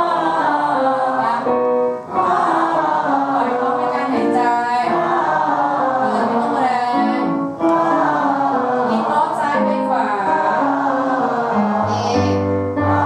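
A group of workshop participants, men and women, singing an open 'ah' vowel together as a vocal warm-up, following a piano note by note. They hold each note and step from pitch to pitch in phrases of a few seconds, with short breaks between them.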